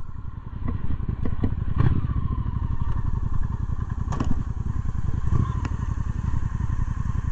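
Cruiser motorcycle engine idling with a steady low pulse while the bike stands still. A few short sharp clicks sound over it.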